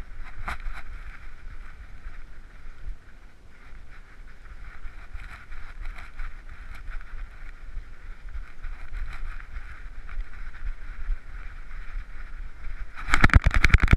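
Handling noise from a GoPro HERO3 strapped to a running dog's head: a steady muffled rubbing hiss with low rumble and scattered light knocks. Near the end it turns into a much louder burst of rapid rattling and knocking as the camera is jostled hard.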